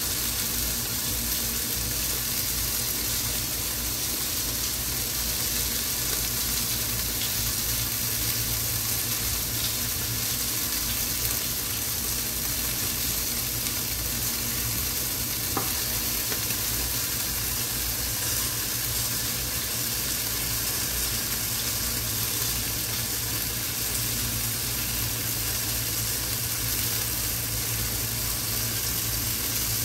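Chicken pieces sizzling steadily as they fry in a pan under a glass lid.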